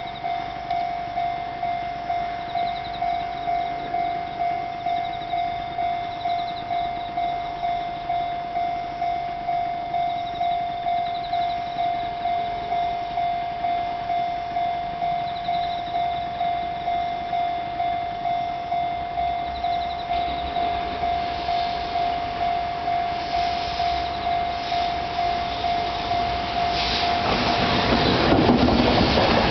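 A Japanese level-crossing warning bell rings in quick, even, repeating strokes. Over the last few seconds an approaching freight train hauled by an EF210 electric locomotive grows louder and covers the bell.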